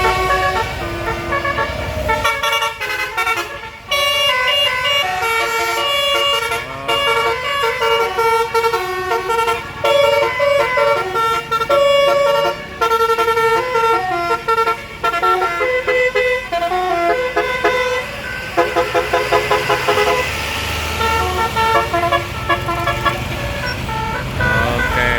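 Multi-tone basuri (telolet) bus horn playing a long run of changing melodic notes, with a fast stuttering string of notes about three-quarters of the way through. A bus engine runs low underneath at the start and near the end.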